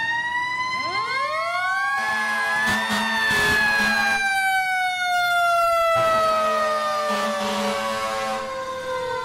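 Fire truck siren winding up twice in quick rising sweeps, then falling slowly and steadily in pitch through the rest.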